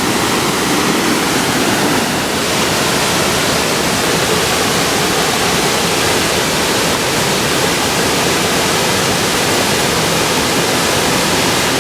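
Waterfall rushing: steady, loud noise of falling water with no change over the stretch.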